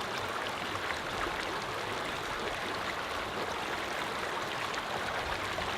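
Steady rush of running water, an even noise with faint ticks of splashing on top.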